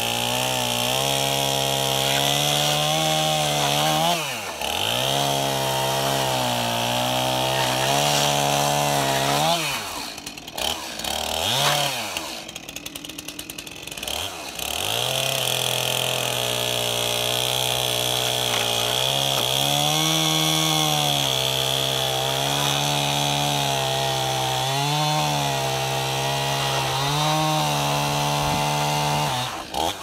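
Gas chainsaw running at full throttle, cutting through a rack of stacked sawmill scrap boards, its engine note dipping each time the chain bogs in the wood. About ten seconds in it falls back toward idle with a quick rev, then runs at full throttle again and drops off near the end.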